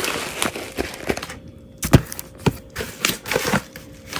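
Handling a plastic-wrapped box: crinkling of the plastic wrap with a run of taps and knocks, the sharpest knock about two seconds in.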